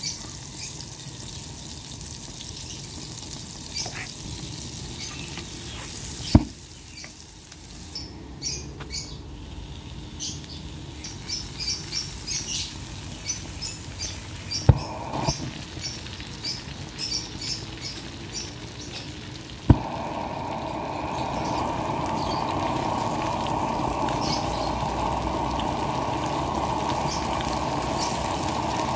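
Butter sizzling and spitting in a frying pan with chicken breasts frying in it, full of small crackles. Three sharp clicks stand out, and from about two-thirds of the way through the sizzle turns louder and denser.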